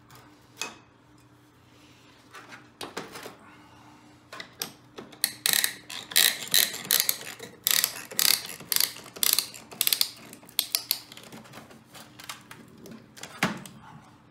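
Quick metallic clicks and clatters from hand tools and engine parts being handled, a few at first, then a dense run of rapid clicking from about five to eleven seconds in.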